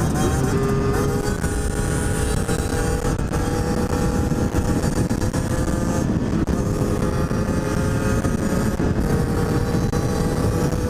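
50cc two-stroke supermoto engines running at a steady cruising speed, the engine note rising slightly and dipping briefly about six seconds in, under steady wind rumble on the helmet camera.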